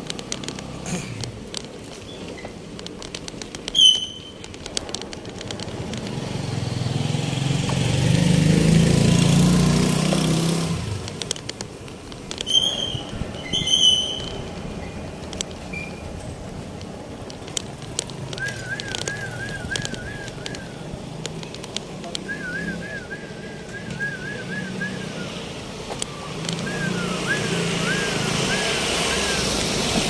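Street traffic: a vehicle passes, loudest about eight to ten seconds in. Short high beeps come near four seconds in and again around thirteen seconds. In the second half there are runs of quick, repeated high chirps.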